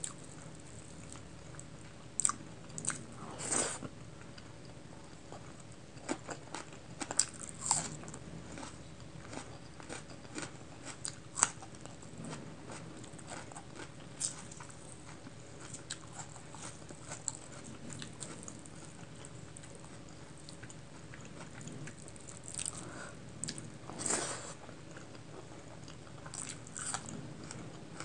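Close-miked eating sounds: chewing and wet lip smacks on a mouthful of pulao and curry eaten by hand, in scattered sharp clicks, with a few longer, louder bursts about three and a half seconds in and near the end.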